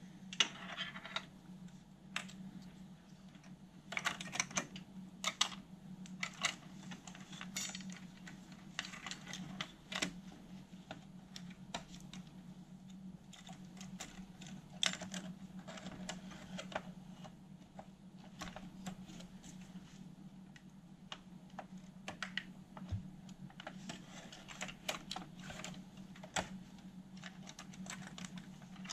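Irregular light clicks, taps and rustles of plastic wire connectors, cable looms and a cassette transport mechanism being handled and fitted into a cassette deck's open chassis, over a steady low hum.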